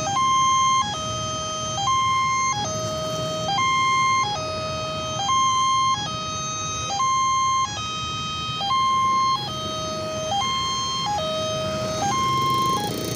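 Electronic warning siren at a railway level crossing, sounding a repeating tone pattern that steps between a high pitch and a low pitch, about one cycle every 1.7 seconds, over a low background rumble.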